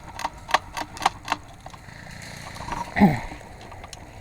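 G&G HPA airsoft rifle firing a quick string of shots, about four a second, stopping after a little over a second. About three seconds in there is a short falling voice-like call.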